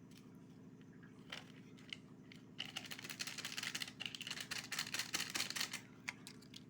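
A packet of pani puri masala powder being opened and emptied over mashed potatoes: a couple of light clicks, then about three seconds of rapid, crisp crinkling and ticking from the plastic packet.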